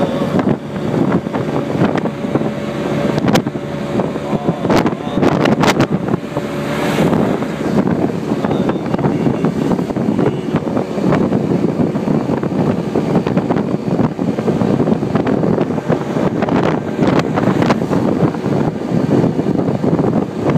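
Cocotaxi's small engine running as it drives along the road, with wind buffeting the microphone and road noise. A few short knocks come between about three and six seconds in.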